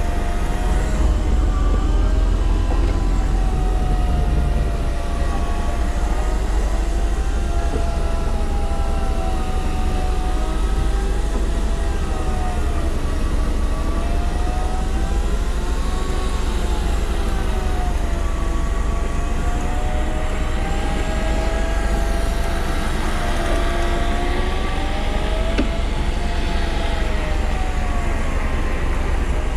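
Fishing boat's engine running with a deep, steady rumble and a whine above it that rises and falls slowly every few seconds.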